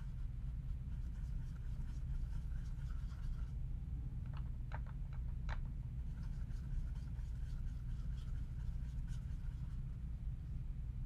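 Paintbrush mixing blue and yellow paint into green on a palette, giving soft scratchy strokes with a few small clicks about halfway through. A steady low hum runs underneath.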